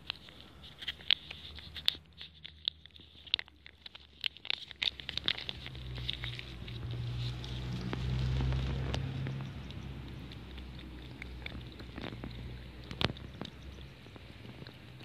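Wet cat food in cream sauce squeezed from a foil pouch into a bowl, then a cat eating it: a scatter of small wet clicks and smacks, thickest in the first few seconds. A low rumble swells in the middle and fades out again.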